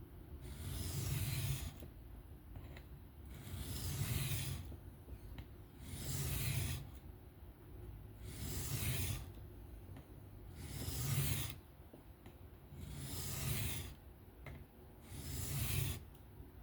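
M390 steel knife blade drawn by hand across a coarse 325-grit sharpening plate in long scraping strokes, seven in all, about one every two seconds, as the edge is sharpened freehand.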